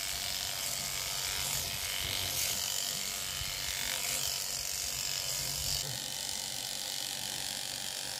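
Electric sheep-shearing handpiece running steadily, its cutter buzzing as it clips the fleece off a Shetland sheep.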